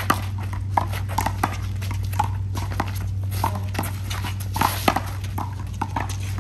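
Handball rally: a string of sharp, irregular smacks as hands strike the small rubber ball and it hits the wall and court, with a few short squeaks, over a steady low hum.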